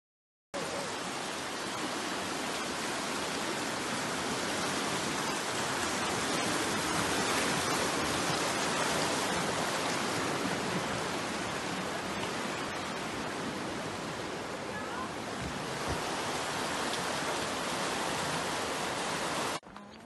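Rushing water of a mountain river or cascade: a steady, even rush that starts about half a second in and cuts off suddenly near the end.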